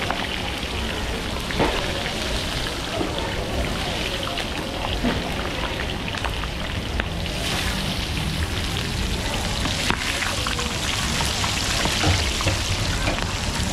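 Steady sizzling and crackling of seafood cooking, with scattered sharp clicks and knocks.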